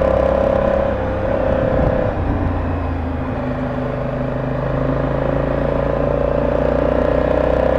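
Honda Africa Twin motorcycle engine running steadily under way. Its note eases briefly between about one and two seconds in, then holds steady.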